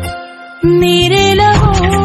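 Bhojpuri film-song music in an instrumental break: the bass and backing drop out for about half a second, then the full arrangement comes back in with a melodic lead line over drums.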